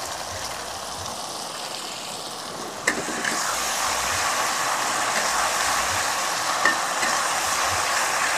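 Spice paste sizzling in hot oil in a wok while it is stirred with a spatula. A sharp clink comes about three seconds in, after which the sizzling is louder.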